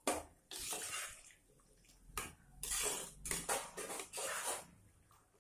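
A metal ladle stirring a watery vegetable stew in an aluminium pot: a run of about eight scraping, clinking strokes against the pot's sides, with the liquid sloshing.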